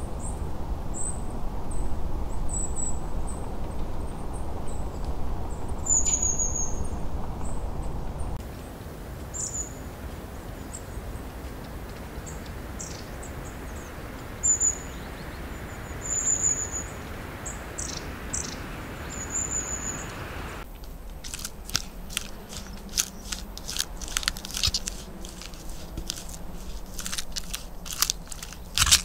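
Short high bird chirps over a steady low rumble. Then, about 21 seconds in, a ground squirrel chewing, a fast irregular run of crunching clicks.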